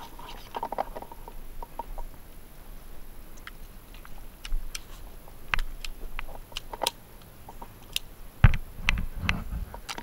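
Scattered sharp pops and cracks of paintball markers firing and balls striking the wooden crate bunkers, growing more frequent, with the loudest pop and a low thump near the end.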